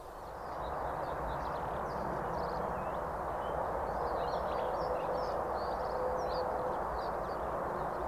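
Songbirds singing: many quick, scattered chirps and twitters over a steady rushing background noise.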